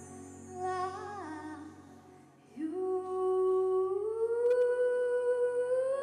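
A girl singing solo into a handheld microphone: a short wavering phrase, then a long held note that slides upward in pitch twice.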